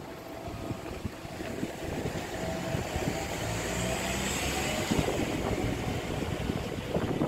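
City street traffic: a car passes, its engine hum and tyre noise swelling around the middle and easing off, over steady street noise.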